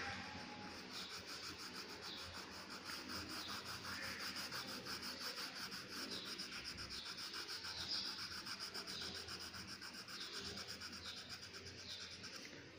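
A blue coloured pencil shading on paper in quick, light back-and-forth strokes: a faint, fast, even scratching rhythm of several strokes a second.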